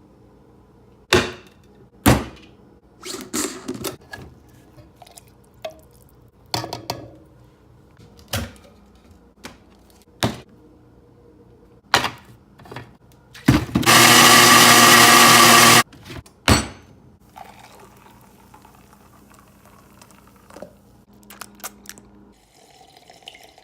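Kitchen handling sounds, a run of short knocks and clunks as containers and utensils are set down and handled. About fourteen seconds in, a countertop blender runs for about two seconds, blending coffee with coconut oil and stevia, and stops suddenly, followed by a few more clunks.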